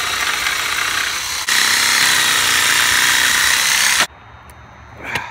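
Power saw cutting wood, running steadily, louder from about a second and a half in, then stopping abruptly about four seconds in. A short click near the end.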